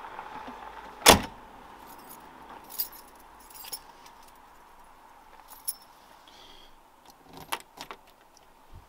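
A car door slams shut about a second in, followed by a jingle of keys and a few light clicks.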